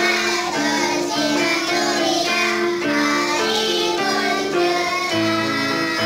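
A class of young girls singing a children's song in unison in Malay, accompanied by an electronic keyboard.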